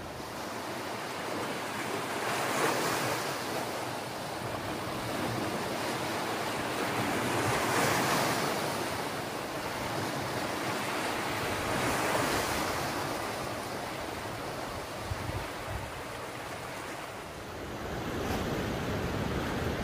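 Sea waves washing over and around shoreline rocks. The surf swells and eases every four or five seconds.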